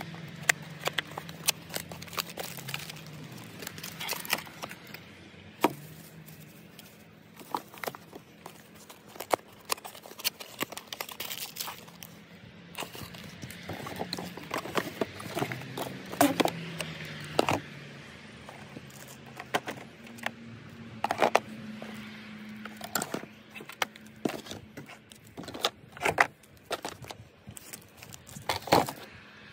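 Cardboard boxes and packaging being handled: irregular taps, knocks and rustles as small camera boxes are lifted out, their flaps opened and bagged cables set down.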